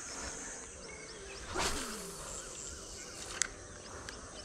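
A spinning rod swishes through a cast about a second and a half in, with a sharp click a couple of seconds later. Underneath are the steady hiss of insects and small bird chirps.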